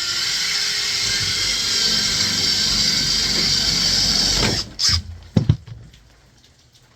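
Power drill with a 5/8-inch wood bit boring a hole through a 2x4, running steadily for about five seconds and then stopping, followed by a few short knocks.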